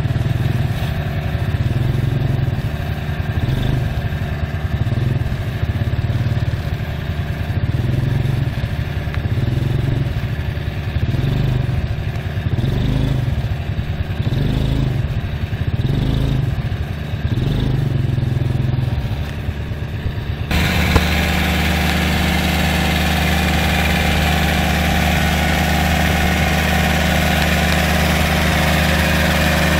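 Tractor's diesel engine running under load while it drags a rotary bund-forming implement through wet paddy mud, the engine note swelling and easing about every one and a half seconds. About two-thirds of the way in, the sound changes abruptly to a steadier, louder engine noise with more hiss.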